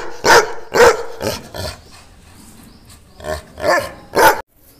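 Yellow Labrador retriever barking in short, sharp calls: four in quick succession about half a second apart, a pause, then three more near the end.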